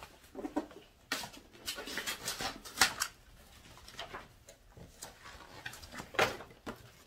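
Paper and plastic packing material rustling and crinkling as it is pulled off and handled, with two sharper crackles about three and six seconds in.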